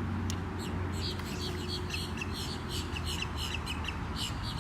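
A bird calling in a fast run of short, high notes, several a second, over a steady low hum.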